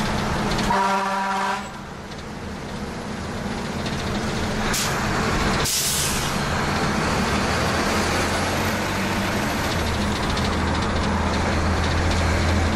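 Fire engine's diesel engine running, heard from inside the cab, with a short horn blast about a second in. Two sharp air hisses, typical of air brakes, come about five and six seconds in, and the engine note grows louder near the end.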